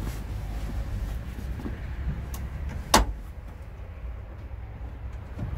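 A single sharp knock about three seconds in, with a few lighter clicks around it, from a man shifting in the driver's seat of a small van. A steady low rumble runs underneath.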